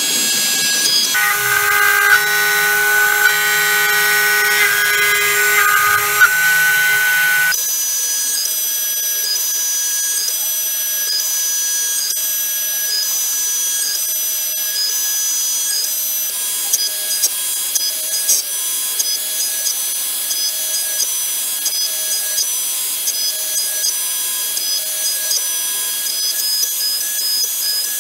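Homemade CNC router's spindle running with a steady high whine as its end mill cuts alder. The sound changes abruptly twice early on, and later the high tones stutter unevenly as the bit cuts.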